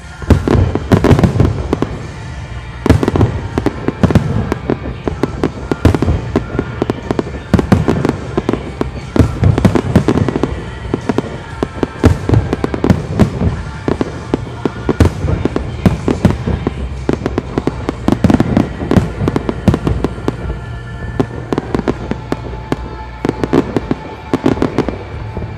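A professional aerial fireworks display, shells bursting in rapid, dense succession as a continuous run of sharp bangs, with music playing underneath.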